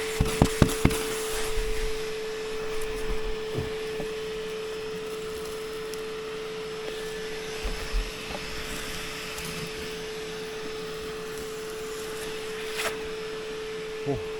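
A small motor running with a steady, even hum at one unchanging pitch. There are a few sharp knocks in the first second and another couple later on.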